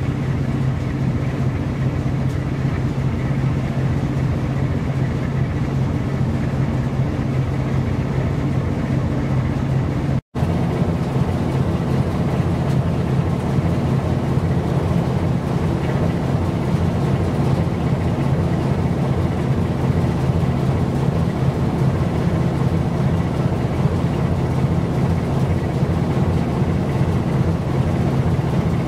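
Steady low drone of a ship's diesel engine running at cruising speed over a constant hiss; it drops out for an instant about ten seconds in and resumes unchanged.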